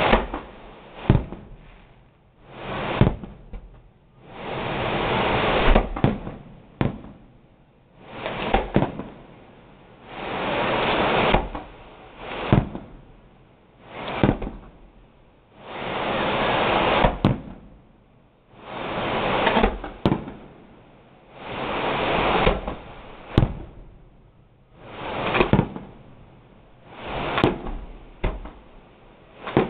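Fireworks display: shell after shell, about one every two seconds, each a swelling rush of noise that ends in a sharp bang.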